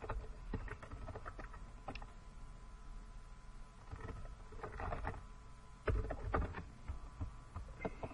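Computer keyboard typing: key clicks in short, irregular runs as a server name is entered.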